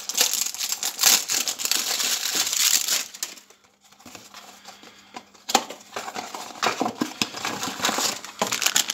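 Plastic wrapping of a Funko Mystery Minis blind box crinkling as it is handled and torn open by hand, with a quieter pause in the middle and sharp clicks of the packaging in the second half.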